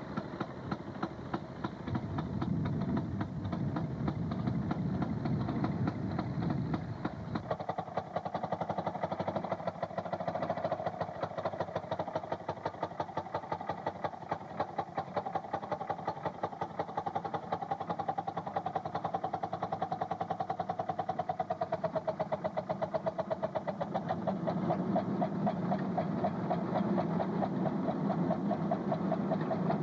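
Railroad motorcar's two-stroke engine running along the track, firing in a rapid, steady popping rhythm. About seven seconds in the low rumble drops away and a higher running tone comes up, with the deeper sound returning near the end.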